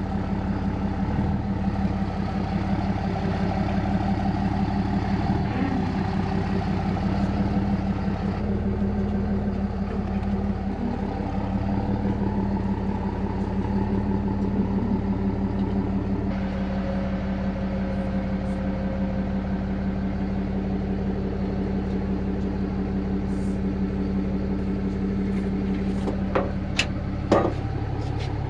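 Pickup truck engine idling steadily while the truck is eased back under a fifth-wheel trailer's pin box for hitching; the low part of the hum drops away about halfway through. Two sharp knocks come near the end.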